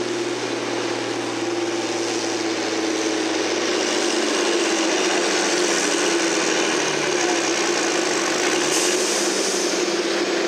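A farm stock pulling tractor's diesel engine running hard and steady under load as it drags the weight-transfer sled, its pitch holding nearly level throughout.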